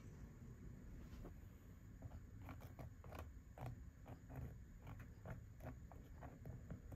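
Faint, irregular little clicks and scrapes of a wooden spoon spreading ketchup over a crispy breadcrumbed eggplant slice, starting about two and a half seconds in.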